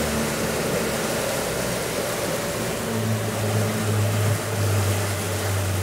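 Yamaha outboard engine running under joystick control as the thrust is eased back. Its higher tones fade and a lower, stronger hum takes over about three seconds in, all under a steady rush of wind and water.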